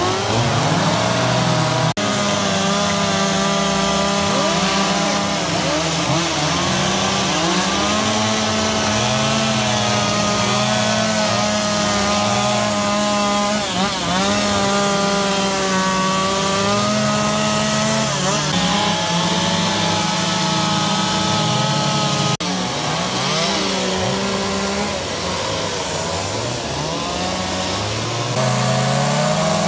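Gasoline carving chainsaws running and cutting into a log, engine pitch rising and falling as the throttle and cutting load change, with more than one saw going at once. The sound breaks off abruptly and picks up again twice, about two seconds in and a little past the middle.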